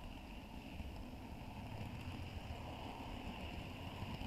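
Model train running fast along the track, heard close up from a camera riding the layout: a steady low rumble of wheels on rail with a high, even hum above it.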